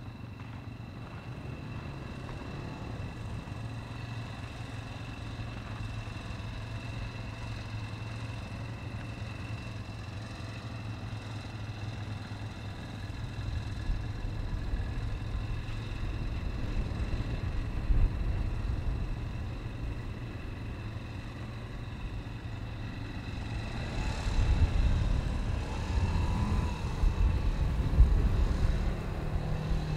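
A steady low engine hum that grows louder and rougher in the last several seconds.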